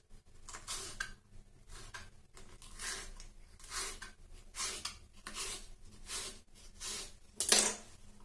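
Kitchen knife slicing a green capsicum into strips on a wooden chopping board, each cut a crisp crunch ending in a tap on the board, about one cut a second. There is a louder knock on the board near the end.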